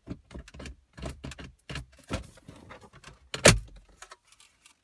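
Plastic clips clicking and the trim rattling as the last retaining clips of the 2014 Ford Escape's upper center-stack dashboard trim release and the panel is lifted off, with a sharp snap about three and a half seconds in.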